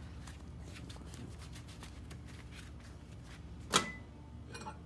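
Faint clicks and rustling of gloved hands handling things, then a sharp clack near the end as the microwave door is popped open, followed by a few small ticks.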